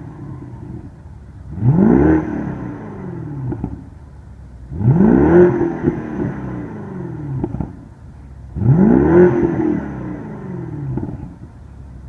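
BMW 650i Gran Coupe's 4.4-litre twin-turbo V8 revved three times while standing, each blip rising quickly in pitch and sinking back to idle over about two seconds.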